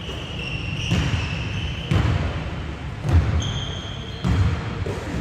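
A basketball being dribbled on a hardwood court, with four thumps about a second apart, among short high squeaks of sneakers on the floor.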